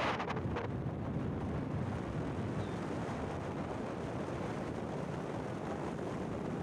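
Steady low rumble of road and wind noise from a vehicle driving along a paved road. Background music cuts out just after the start.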